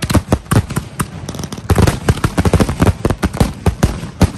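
Consumer fireworks finale: 500-gram cakes and canister shells bursting overhead in rapid, overlapping reports, several a second. The reports come thickest about two seconds in.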